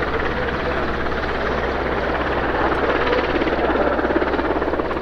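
Royal Navy Merlin Mk2 (AgustaWestland AW101) helicopter on short final, its main rotor blades chopping in a fast, even beat over the steady running of its three turboshaft engines.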